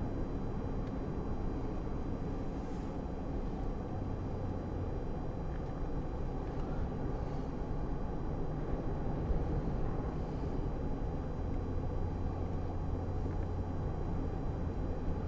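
Steady low drone of a 2003 Chevrolet Silverado pickup under way, engine and road noise heard from inside the cab.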